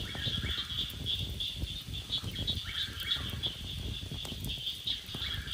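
Night chorus of frogs and insects: a steady high-pitched trilling, with three shorter, lower calls standing out.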